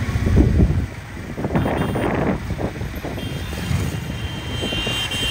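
Road traffic heard while travelling along a street, with wind buffeting the microphone. A vehicle horn sounds steadily from about three seconds in.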